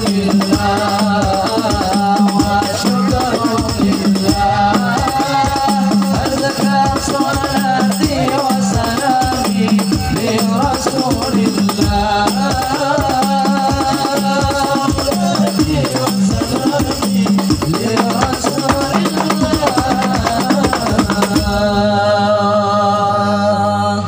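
Sholawat music led by darbuka hand drums playing a fast, driving rhythm with jingling hand percussion, under a melody line. Near the end the drumming stops and steady held notes carry on.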